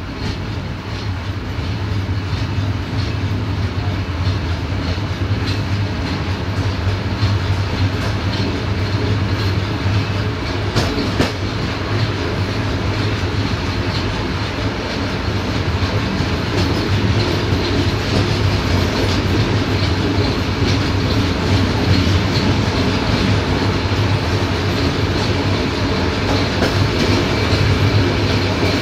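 Rumble and rattle of a passenger train's carriage running along the track, heard from aboard the rear coach, with irregular clicks of the wheels over rail joints. It grows slowly louder.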